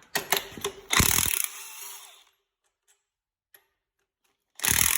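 Socket wrench working on a small-block V8's cylinder-head bolts: a few sharp ratchet clicks, then metal-on-metal tool noise in a loud spell about a second in and again near the end.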